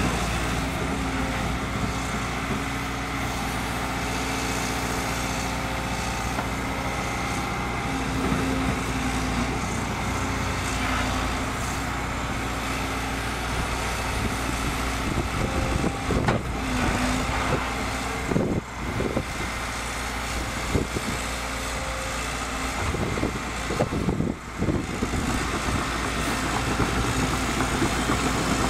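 Liebherr 924 Litronic excavator's diesel engine running steadily, with several knocks and clanks in the second half.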